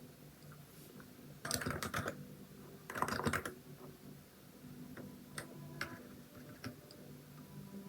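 Typing on a Hansung capacitive (non-contact switch) keyboard with XDA-profile keycaps: two quick runs of keystrokes in the first half, then scattered single key presses.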